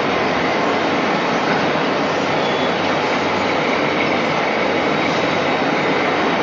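Welding electrode production machinery running with a loud, steady mechanical noise that holds level throughout.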